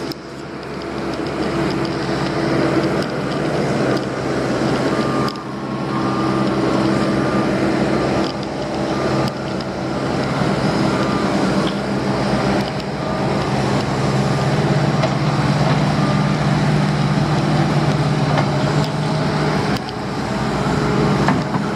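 Heavy diesel earthmoving machinery running under load while moving dirt: a steady engine note under a dense mechanical clatter, growing louder about two-thirds of the way through, with a few sharp metallic knocks.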